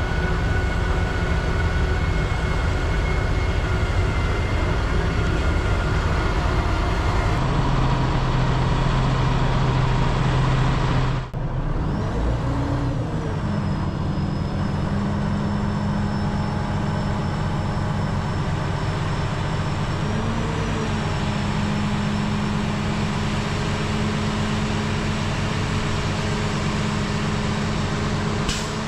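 Semi truck's diesel engine running steadily. After a brief dropout about eleven seconds in, it runs on with a thin steady whine as the hydraulic hoist lifts the end-dump trailer's bed.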